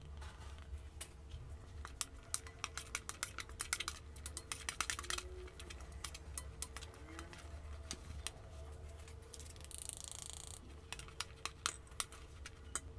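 A metal spoon tossing boiled penne pasta in corn flour on a steel plate: irregular light clinks and scrapes of metal on metal.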